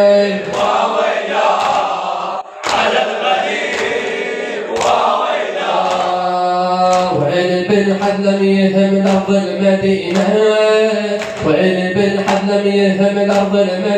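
A Shia latmiya mourning chant: male voices chant the lament refrain together. Rhythmic chest-beating slaps land about once a second.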